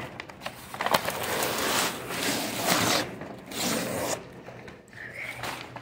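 Two painted sheets of paper stuck together with dried paint being peeled apart, the lighter print paper ripping in several rasping tears of about half a second each.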